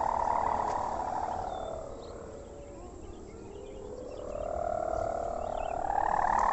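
Sendaren kite hummer of a gapangan kite droning in the wind with a buzzing, snoring ngorok tone that swells and fades, weakest about halfway through and swelling again near the end.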